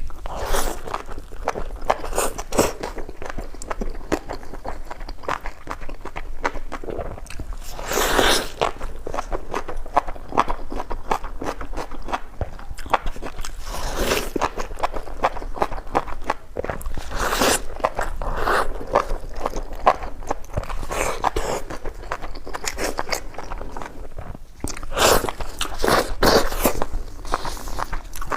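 A person biting and chewing crunchy food: continuous crunching and crackling, with louder crunches every few seconds.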